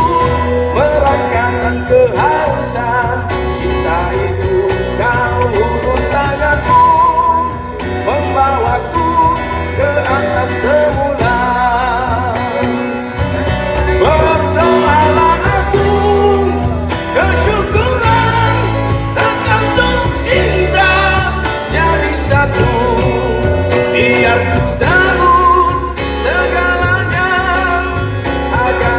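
Live amplified band playing a rock song: acoustic guitar, electric bass and cajon, with a man singing through a microphone over them.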